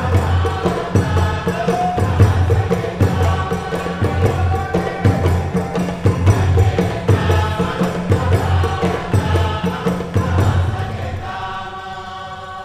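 Chorus singing together in a chant-like melody over a steady deep drum beat. About eleven seconds in, the drum stops and the voices hold a long chord that begins to fade.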